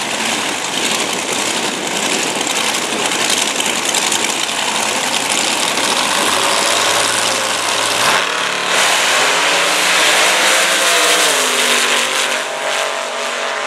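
Two Top Dragster race engines running loud on the start line, then launching about eight seconds in. The engine note climbs, drops once with a gear change about three seconds later, and climbs again as the cars accelerate away down the track.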